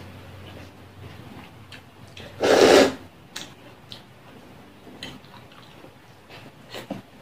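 Close-up eating sounds of a person picking fish and rice apart with bare fingers: soft, scattered clicks and small smacks. About two and a half seconds in comes one loud rushing burst lasting about half a second.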